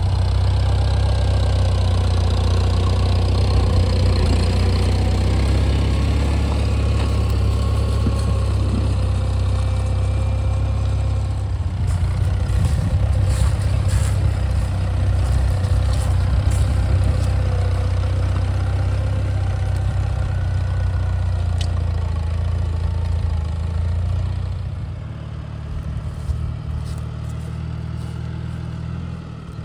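Four-cylinder Farmall tractor engine running steadily under load as it pulls a one-bottom plow along the next row, close by, then falling off in level near the end.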